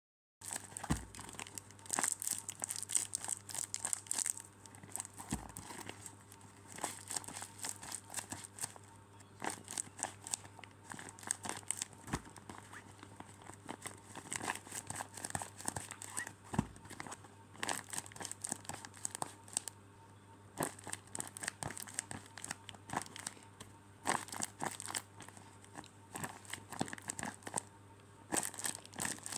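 Crinkling and crackling of squishies being handled and squeezed, in dense, irregular bursts.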